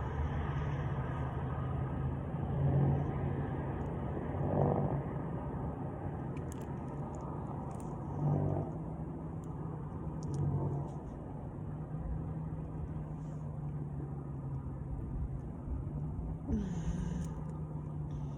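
A person chugging a 2-liter bottle of Diet Coke: a few short gulps over a steady low rumble and hum.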